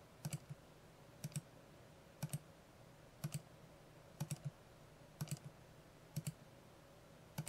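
Computer mouse button clicked repeatedly: short bursts of two or three quick clicks, about once a second.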